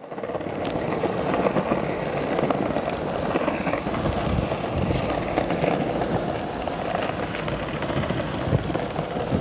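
Skateboard wheels rolling over brick pavers: a steady rough rumble with a dense clatter from the joints between the bricks.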